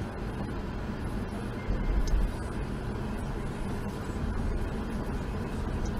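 Steady low rumble of a car's tyres and engine heard from inside the cabin while driving, with a brief louder low thump about two seconds in.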